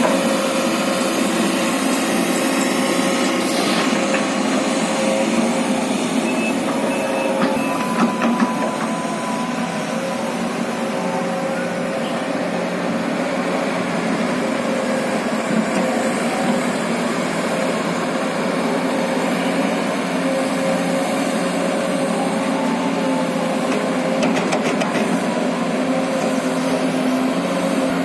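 Sumitomo SH210 hydraulic excavator running steadily, with a few short knocks about eight seconds in.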